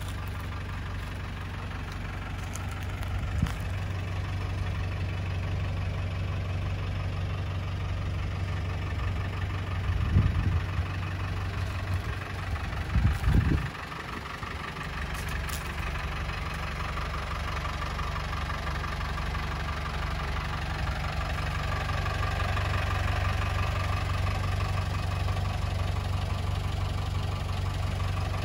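1991 Land Rover Defender's engine idling steadily, with a few low thumps about ten and thirteen seconds in.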